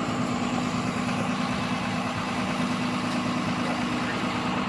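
Vehicle engine idling, a steady hum with a constant low tone.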